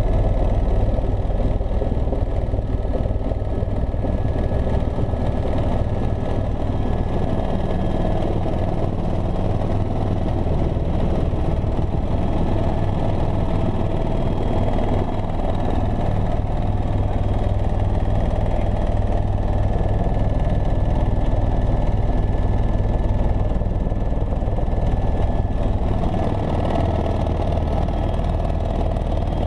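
Helicopter in flight: a steady, heavy rotor and engine drone with a thin, steady whine above it.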